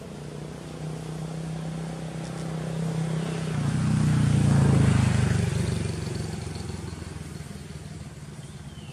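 A motor vehicle's engine passing by. Its steady hum grows louder, is loudest about four to five seconds in, then fades away.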